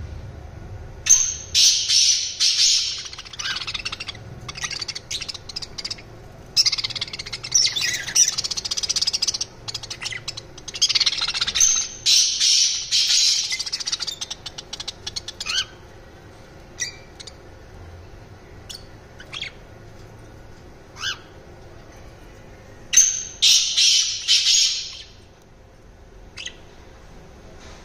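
Caged budgerigars and a rose-ringed parakeet calling: four loud bursts of high-pitched chattering calls, each one to three seconds long, with scattered single short calls in between.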